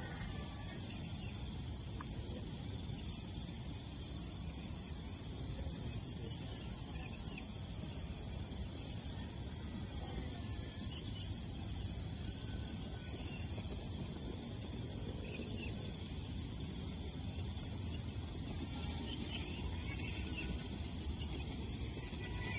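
Steady outdoor ambience of insects chirping continuously, over a low, even background hiss.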